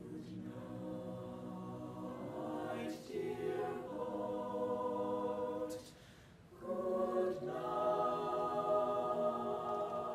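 Mixed choir singing slow, held chords, breaking off briefly about six seconds in and coming back in louder.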